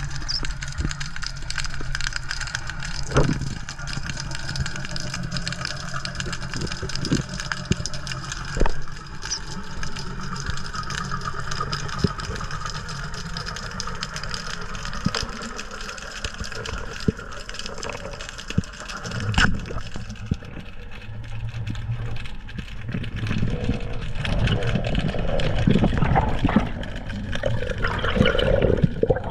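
Underwater sound picked up through a camera's waterproof housing: a steady low hum and water rushing, with scattered sharp clicks. The water noise swells and churns in the last few seconds.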